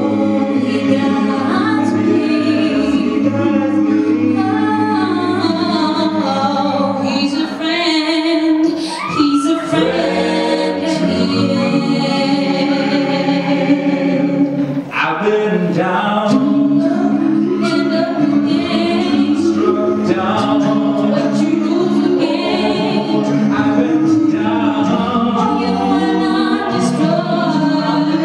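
A cappella gospel vocal group singing into microphones: a female lead voice over sustained close harmonies from the rest of the group, with no instruments.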